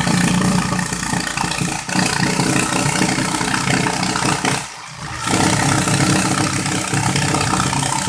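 Electric jigsaw cutting through MDF board, running steadily. The sawing drops out briefly a little past halfway, then starts again.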